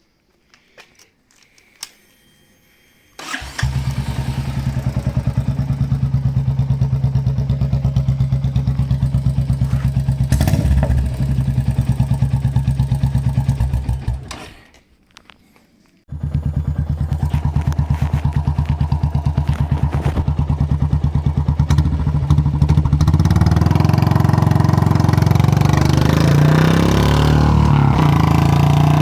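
Royal Enfield Meteor 350's single-cylinder engine, breathing through a Punjabi-style exhaust, starts a few seconds in and idles with a steady, even thump. It is shut off about halfway through, starts again a second or two later, and from about two-thirds of the way in runs a little higher and louder.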